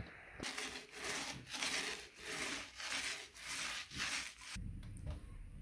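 Wood being worked by hand with a saw or abrasive in steady back-and-forth strokes, a little over two a second, which stop abruptly near the end, giving way to a low hum.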